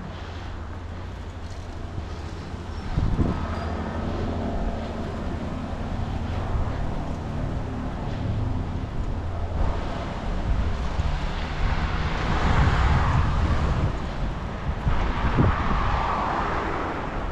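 Wind buffeting the microphone of a moving bicycle rider, a rough low rumble that swells about three seconds in and again near the end.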